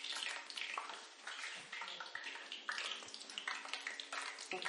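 Hot oil sizzling in a pan: a steady crackling hiss.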